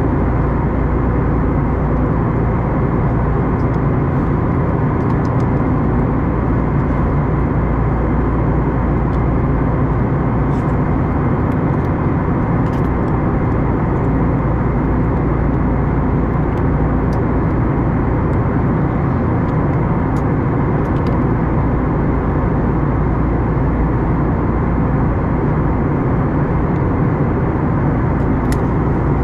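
Steady cabin noise of an Airbus A321neo heard from a window seat: an even rush of engine and airflow noise, deep and unchanging in level.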